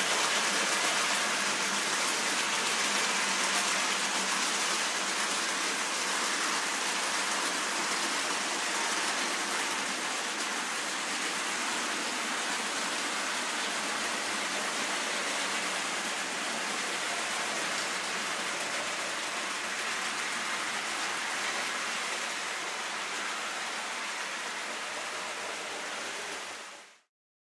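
Steady hiss-like rolling noise of N gauge model trains running on the layout's track. It eases slightly and then fades out sharply near the end.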